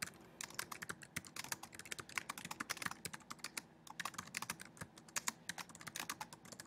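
Typing on a computer keyboard: quick, irregular runs of keystrokes with a short pause about four seconds in.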